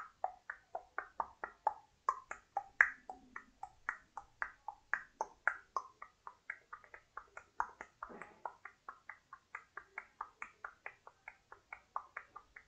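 A quick, even run of short ticks, about four to five a second, that shift between higher and lower pitch: the thinking-time sound effect of an on-screen quiz video, heard during the pause for the answer.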